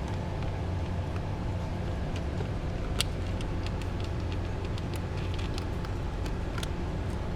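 Light scattered clicks and taps of screws and plastic cover parts being handled while the scooter's air-filter cover is refitted, with one sharper click about three seconds in, over a steady low background rumble.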